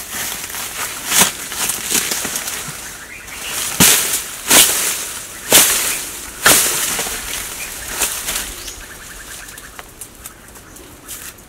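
Dry palm fibre and leaf litter being ripped and torn apart by hand: rustling with a series of sharp rips about a second apart, loudest through the middle, thinning out near the end.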